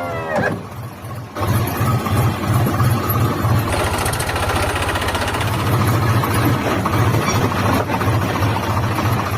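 Music ends with a falling slide. About a second and a half in, a small motor on a DIY mini tractor and baler starts running steadily, with a fast low chugging pulse of about four beats a second.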